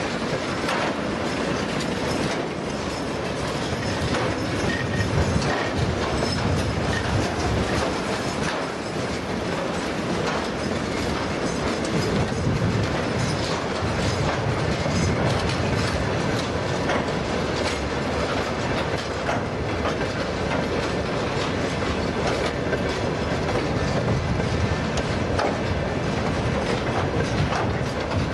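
Freight train wagons, tank cars and then open box wagons, rolling past close by, their steel wheels clattering in a steady run of clicks over the rail joints and level crossing.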